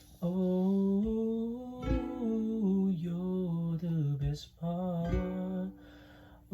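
Ukulele strummed a few times under long, wordless held vocal notes that slide between pitches, falling quiet near the end.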